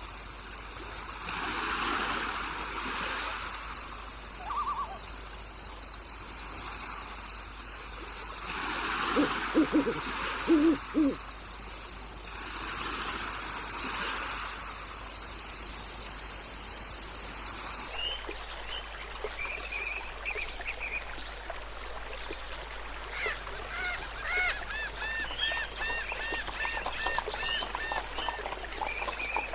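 Night nature ambience: a steady high insect trill with a cricket chirping in even pulses, and a few low hooting calls about nine to eleven seconds in. About eighteen seconds in the sound cuts abruptly to another recording of animal calls in rapid series of short chirps.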